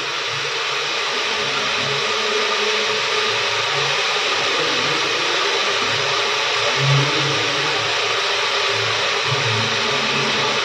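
Grated onion sizzling steadily in hot oil in an open pressure cooker on a low flame, being fried until lightly golden.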